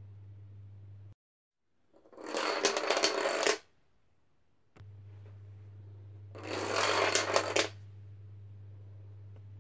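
Lines of toy dominoes toppling onto a wooden floor: two runs of rapid clattering clicks, each about a second and a half, the first about two seconds in and the second a little past six seconds. A steady low hum lies between them.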